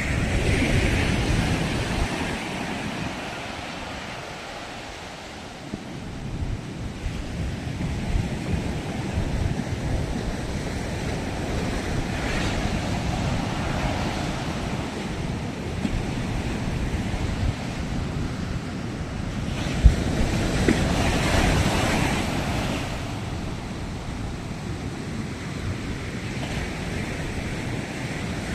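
Sea waves breaking and washing ashore, surging and ebbing every several seconds, with wind rumbling on the microphone. One brief sharp knock comes about twenty seconds in.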